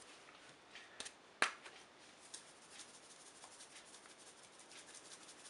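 Near-quiet room tone with a few faint, sharp clicks, the clearest two about a second and a second and a half in, and scattered tiny ticks near the end.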